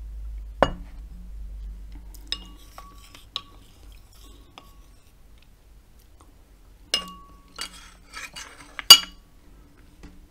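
Ceramic tableware clinking as a wooden spoon, a ceramic bowl and a ceramic plate are handled on a table: a few scattered clinks with a short ring, then a quicker run of them in the last few seconds, the loudest near the end.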